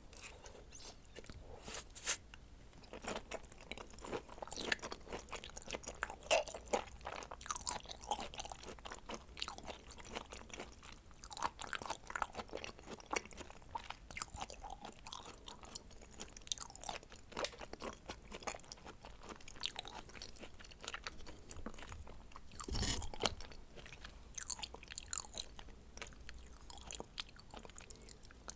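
Close-miked chewing of raw scallop and red shrimp sashimi: a steady stream of short wet clicks and smacks from the mouth, with a louder thump about 23 seconds in.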